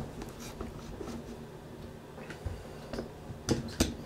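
One-handed trigger bar clamps being set and tightened on a wooden board: scattered light clicks and knocks, with two sharper clicks near the end.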